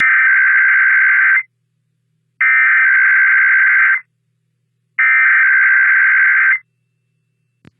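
Emergency Alert System SAME header: three identical bursts of warbling digital data tones, each about a second and a half long with about a second of silence between, announcing an IPAWS Required Weekly Test. A faint click comes near the end.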